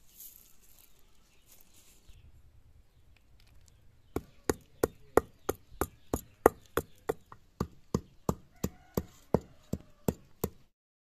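Stone muller pounding whole cumin, coriander seeds and dried turmeric on a flat grinding stone to crack them before grinding into paste: a steady run of sharp knocks, about three a second, starting about four seconds in and stopping abruptly near the end.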